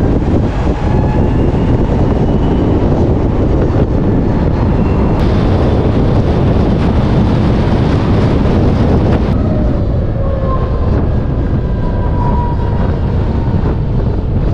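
Steady wind and road noise of an electric scooter riding at expressway speed. A brighter hiss joins for a few seconds midway and cuts off suddenly. Thin whines glide up and down near the end.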